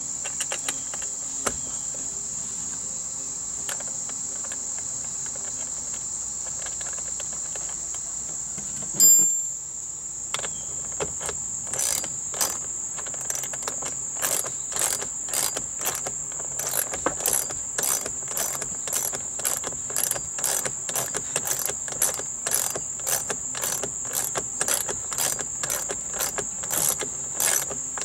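Socket ratchet clicking in an even rhythm, about two strokes a second, as a stainless steel bolt is tightened against an adjustable wrench. Crickets chirr steadily and high-pitched throughout. One sharp metallic clatter about nine seconds in, then the ratcheting starts a few seconds later.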